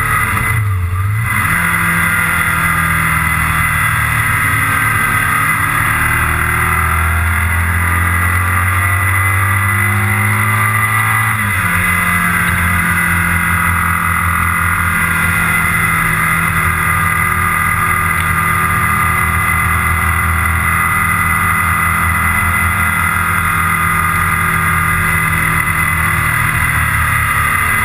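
The engine of a vehicle running at road speed, with steady wind rush over it. The engine note dips and climbs back about a second in, then changes pitch again about eleven seconds in.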